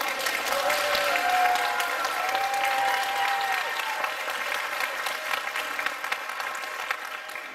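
Audience clapping, with a couple of long cheers rising over it a second or two in, the applause thinning out toward the end.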